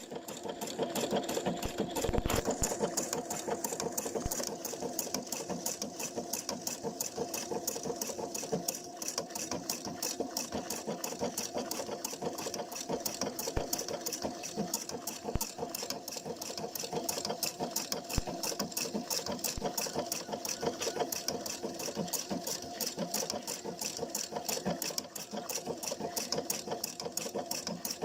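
Pfaff Quilt Expression 720 computerised sewing machine running steadily, its needle stitching in a rapid, even rhythm, with a few soft low thumps along the way.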